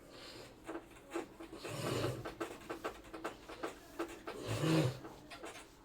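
A man breathing out audibly twice in short, low, half-voiced breaths, about two seconds in and again near the end, over faint scattered clicks and handling noise.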